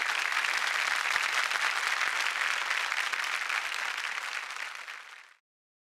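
Large theatre audience applauding, a dense even clapping that fades and then cuts off abruptly to silence about five seconds in.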